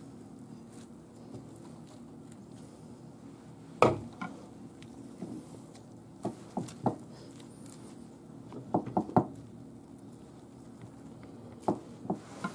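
A stuffed veal cutlet being turned and pressed by hand in a glass dish of beaten egg: scattered wet slaps and squelches, the loudest about four seconds in and a quick cluster of three or four near nine seconds. A low steady hum runs underneath.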